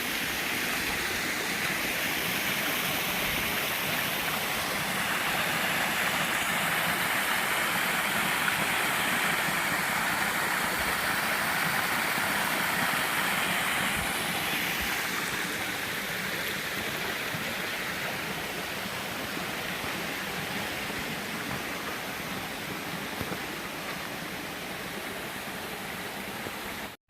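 Steady rush of flowing creek water, swelling a little midway and easing off, then cutting off abruptly at the end.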